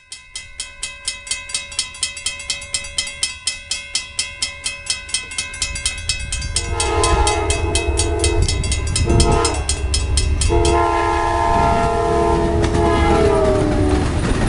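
Railroad crossing signal bell ringing about three strikes a second, joined about halfway through by a passing train's horn: a long blast, a short one, then another long one. The bell stops near the end while the horn holds, over a low rumble of the train.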